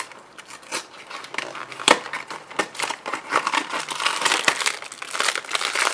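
Printed cardboard blind box being pried open by hand, its packaging crinkling and crackling in a run of small snaps. There is a sharp snap about two seconds in, and the crinkling grows denser toward the end.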